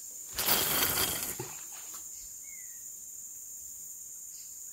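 A fishing rod being cast with its reel: a whooshing rush of about a second as the line runs out, over a steady high trill of crickets.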